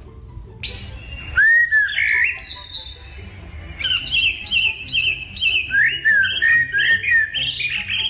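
A pet parrot calling with rising and falling whistled chirps, then from about four seconds in a quick run of short repeated chirps, about three a second.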